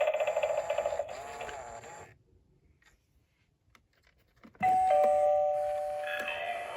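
Gemmy animated Halloween doorbells playing their sound effects: one trails off over the first two seconds, and after a short silence another starts with a two-note ding-dong chime, a higher note then a lower one ringing on together for about a second and a half, before more of its recorded audio begins near the end.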